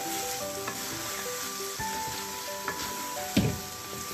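Mutton and curd sizzling as they fry in a metal pot while being stirred with a wooden spoon, under background music of long held notes. A single sharp knock about three and a half seconds in.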